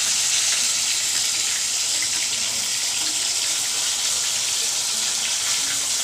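Pieces of fish frying in hot oil in a kadai, a steady sizzling hiss.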